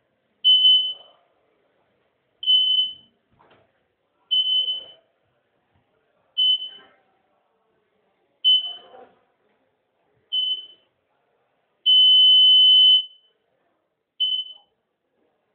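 Electronic beeps at one high pitch, about one every two seconds, eight in all, with one longer held beep about twelve seconds in.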